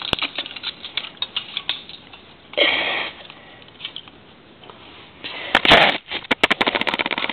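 Plastic LEGO figure parts clicking and tapping as the figures are handled and set down on a hard floor, with a short breathy hiss about two and a half seconds in. Near the end, a louder rustling knock as the camera is moved, then a fast, even run of light clicks.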